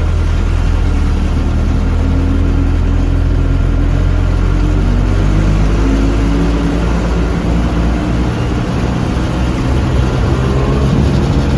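Diesel engine of a front-engined Mitsubishi bus heard from inside the cabin on the move: a steady low drone whose pitch drifts up and down, easing briefly about eight seconds in and then pulling again.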